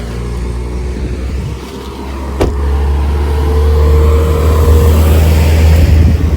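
Car engine running with a deep, steady low rumble that swells about two and a half seconds in and keeps growing louder, with a single sharp click as it swells.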